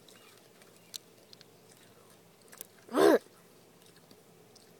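Faint crinkles and ticks of a candy's paper wrapper being picked apart by hand. About three seconds in comes one brief, loud voice sound whose pitch rises and then falls.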